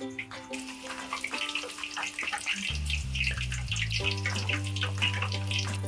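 Raw plantain slices sizzling and crackling in hot oil in a kadai, the sizzle starting about half a second in as the slices go in, with background music.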